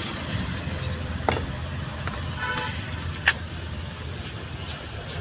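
Metal clinks and knocks of tools and parts on a truck's manual gearbox being assembled by hand: two sharp knocks and a brief ringing clink, over a steady low rumble.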